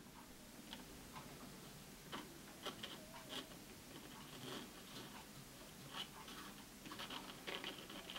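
Light, irregular scratching and scraping as old foam-surround residue is rubbed off the rim of a speaker woofer with a folded abrasive sheet. The strokes come in short uneven bursts and grow busier near the end.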